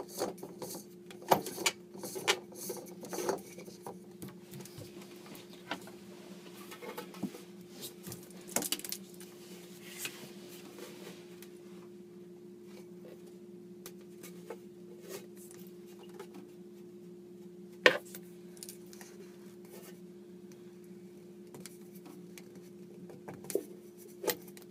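Scattered clicks and scrapes of a faucet's fixing nut being threaded by hand up the shank from under a sink, densest at first and then only now and then, over a steady low hum.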